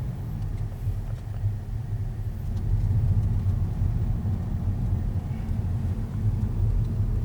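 Car driving on the road: a steady low rumble of road and engine noise, heard from inside the cabin.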